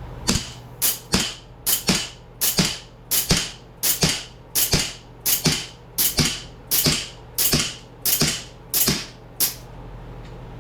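CO2-powered replica 1911 Springfield pistol firing about seventeen shots in quick succession, roughly two a second at uneven spacing. Each is a sharp pop with a short ringing tail, and the firing stops shortly before the end.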